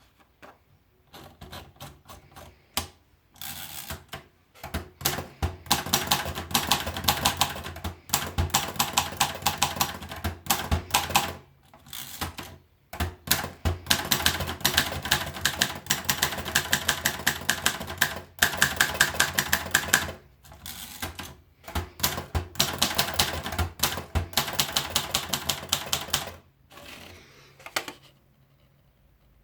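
Olivetti Ico manual typewriter being typed on: a few scattered key strikes, then long runs of rapid keystrokes broken by two short pauses, thinning out to a few last strikes near the end.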